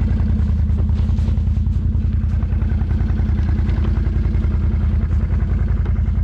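Can-Am Renegade 800 ATV's V-twin engine running steadily with an even pulse while the quad drives through deep snow.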